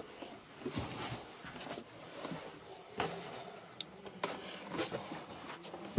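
Quiet small-room tone in a wood-panelled boat cabin, broken by a handful of soft knocks and clicks from footsteps and handling as someone moves through.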